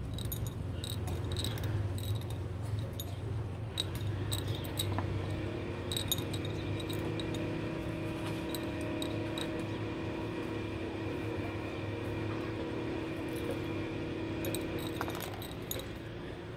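Small chips dropped into a glass bottle, clicking and clinking against the glass in quick irregular runs, thickest in the first few seconds and again near the end. A steady low hum lies underneath, and a steady droning tone comes in for about ten seconds in the middle.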